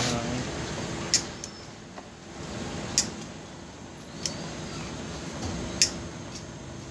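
Hands handling electrical wires and plastic parts inside a scooter's opened front panel: rustling with three sharp clicks spaced a couple of seconds apart, over a faint steady hum.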